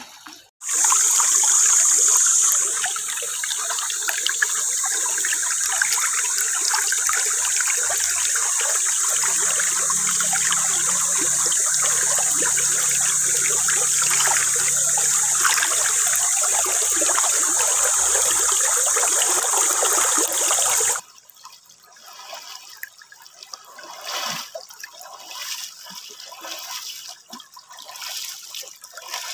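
Shallow creek water rushing and rippling right beside the microphone, a loud steady hiss that cuts off suddenly about two-thirds of the way through. After that come quieter, irregular splashes of feet wading through shallow water.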